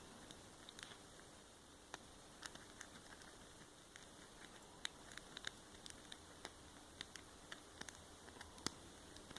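Faint, irregular small metallic clicks of a double-peak Bogota rake being worked in and out across the pins of a 5-pin brass Brinks padlock under light tension.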